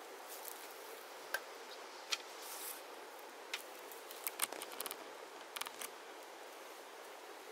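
Irregular sharp clicks and snips from hand work, single ones at first, then two quick clusters past the middle, over a steady outdoor hiss.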